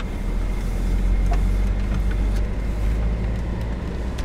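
Off-road vehicle's engine and drivetrain running with a steady low rumble as it drives along a grassy dirt track, heard from inside the cab, with a few faint knocks.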